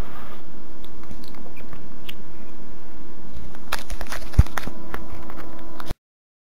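Scattered small clicks and crackles over a steady low hum, with a cluster of clicks about four seconds in and one sharper click among them; the sound cuts off abruptly about six seconds in.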